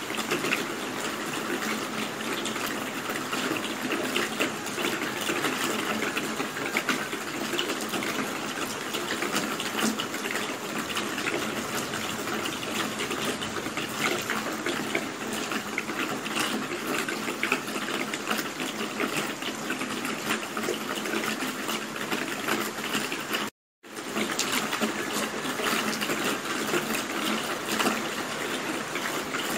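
Steady rain falling, a dense hiss of many small drop impacts at an even level. About 23 seconds in it cuts out for a split second, then carries on unchanged.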